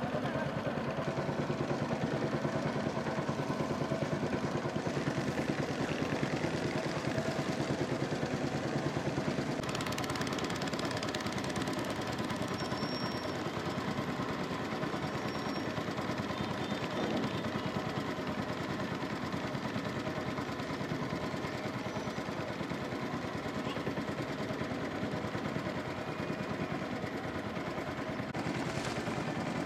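Small boat's engine running steadily under way.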